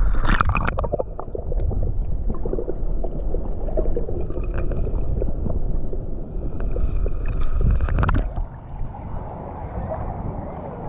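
Shallow water sloshing while wading, with wind rumbling on the microphone. There is a splashy burst right at the start and another about eight seconds in.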